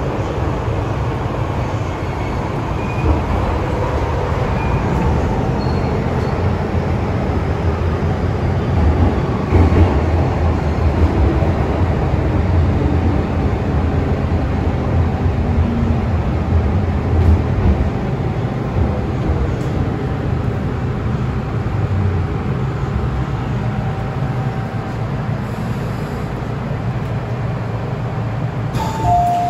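MTR Tsuen Wan Line M-train running on the line: a steady, loud rumble of wheels and running gear with a faint shifting whine. Right at the end two short steady tones sound, like a chime.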